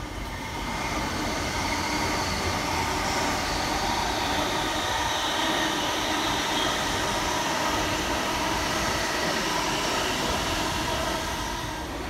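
Intercity train running through the station: a steady rushing noise with a faint whine, building over the first second and then holding.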